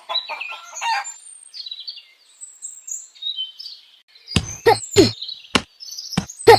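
Small birds chirping and twittering with short high calls. From about four seconds in, a run of sharp clicks joins them, several of them followed by a short call that falls in pitch.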